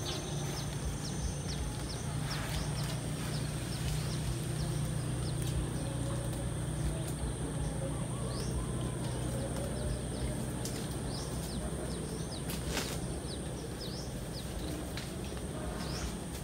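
Outdoor orchard ambience: birds giving many short, high chirps over a steady high insect whine and a low steady hum, with one sharp click about 13 seconds in.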